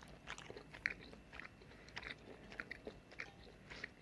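A person chewing a mouthful of stir-fried udon noodles and vegetables: faint, irregular wet mouth clicks.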